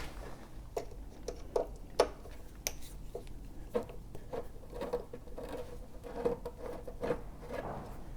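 Hand tools working on the motorcycle's front mudguard fasteners: irregular small clicks and knocks, with short faint squeaks coming in repeatedly over the second half.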